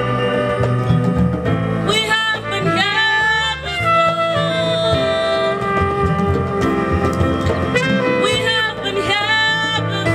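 Live jazz band playing: a woman singing melodic lines over double bass, piano and trumpet, with one long held note about midway.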